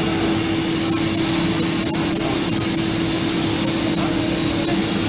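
Serkon MC50 automatic CNC fabric cutter running as its head travels and cuts through a plastic-covered fabric lay. It makes a steady hiss with an even hum under it, the sound of the vacuum table holding the lay down and the cutting head at work.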